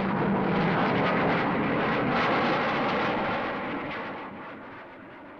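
Jet aircraft flying past: a steady rushing jet-engine noise that holds for about three seconds, then fades away as the aircraft recedes.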